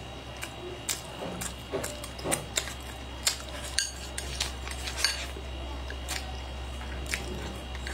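Wooden chopsticks clicking against a bowl and mouth sounds of chewing food: many short, irregular clicks over a low steady hum.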